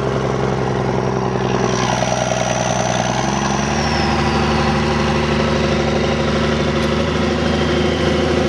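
Allis-Chalmers D-19 tractor engine running steadily while pulling a plow through the field, its pitch stepping up slightly about three and a half seconds in.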